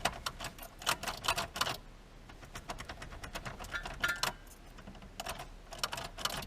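Several bursts of rapid light clicks and taps, in three clusters a second or two apart.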